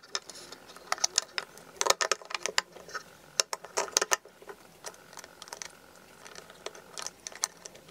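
Batteries being fitted into the battery compartment of a light-up snowman decoration: a run of small, irregular clicks and taps of batteries against plastic, thick at first and thinning out in the second half.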